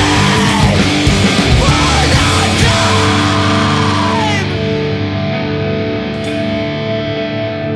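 Heavy rock music with distorted electric guitar, thinning about halfway through to held, sustained guitar notes.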